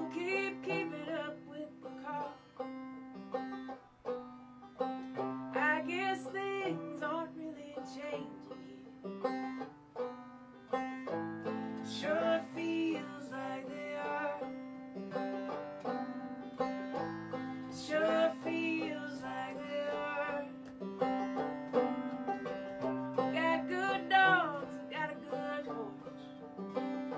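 Live acoustic folk song: a woman singing over her strummed acoustic guitar and a picked banjo, with sung lines every few seconds and the instruments carrying on between them.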